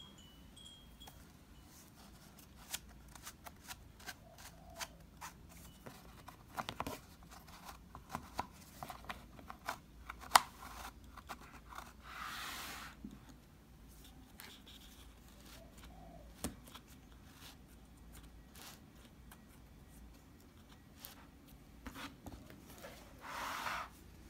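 Cardboard pull-tabs of a children's board book being slid and pushed: faint clicks and small scrapes, with two longer rustling slides. The second comes near the end as a thick board page is turned.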